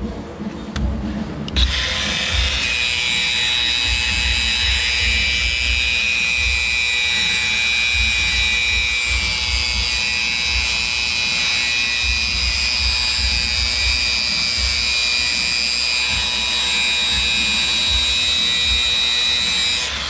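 Cordless DeWalt angle grinder with a sanding disc, starting about a second and a half in and running with a steady high whine against the metal tank being prepped for polishing. It stops right at the end.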